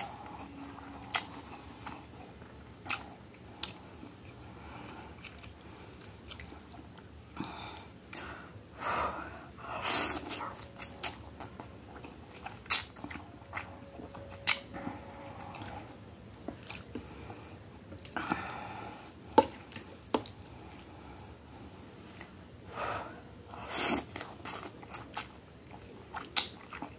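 Close-up eating sounds: instant noodles slurped in several noisy bursts of about a second each, with chewing and sharp clicks scattered between them.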